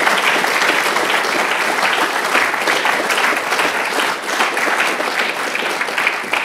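Audience applauding: the dense, steady clapping of many hands.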